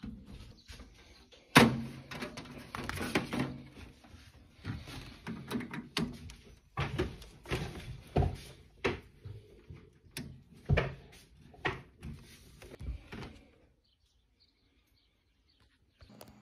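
Clicks, knocks and rattles of cable plugs being handled and pushed home: a DB25 parallel-port plug seated on a metal control box and connectors plugged into the back of a computer case. The loudest knock comes about a second and a half in.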